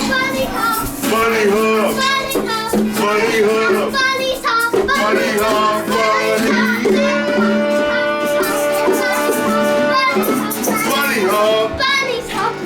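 A child singing along with music, holding one long steady note in the middle.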